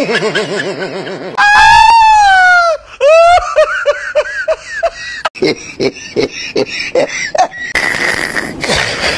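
Comic laughter sound effect: a high, cartoonish laughing voice in quick repeated notes, with a long falling whoop about one and a half seconds in.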